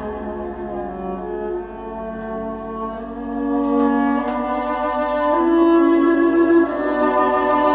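Classical bowed-string music playing from a vinyl record on a turntable. Sustained string notes shift in pitch and grow louder about three seconds in.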